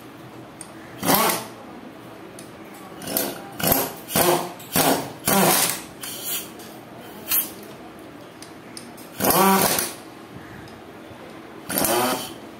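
Ratchet wrench clicking in short bursts, about ten in all, as it is swung back and forth to run bolts into a gearbox's shift housing; the longest burst comes a little past the middle.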